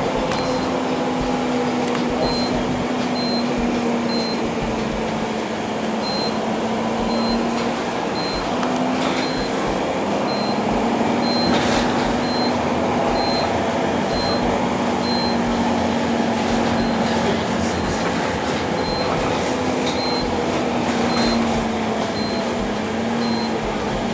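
Bus engine drone and road noise heard from inside the cabin while driving through city traffic; the engine note shifts slowly in pitch. A faint high beep repeats about every three-quarters of a second, with a few clicks and rattles.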